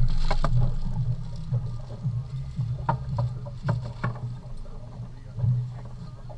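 A boat's engine running with a steady low drone, with scattered knocks and clatter on board over it.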